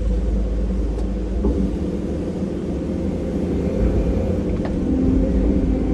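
Heavy diesel earthmoving machinery running steadily with a low rumble, with a few faint clinks.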